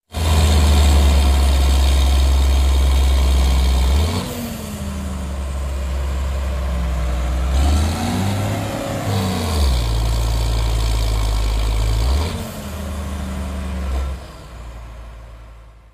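Big four-wheel-drive tractor's diesel engine running hard while bogged down in mud, its low steady note dropping and rising in pitch several times as the revs change. It fades out near the end.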